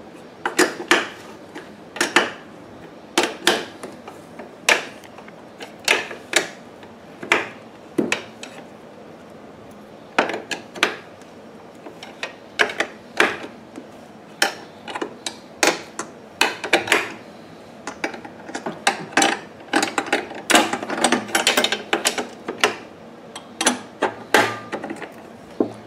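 Sharp metallic clicks and clinks, irregular, one or two a second with a busier stretch about three quarters of the way through: a hand wrench working a brass hose-barb fitting tight on a generator's frame.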